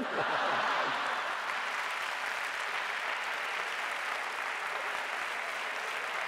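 Theatre audience applauding a stand-up comedian's punchline, swelling at once and then holding steady.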